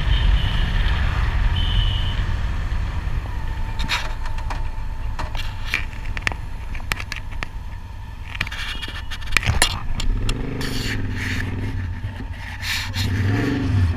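Cruiser motorcycle riding along a road, heard from a handlebar-mounted camera: low engine rumble mixed with wind noise on the microphone, the rumble easing after the first couple of seconds. Scattered clicks and knocks run from about four seconds in, and a deeper engine note swells briefly twice near the end.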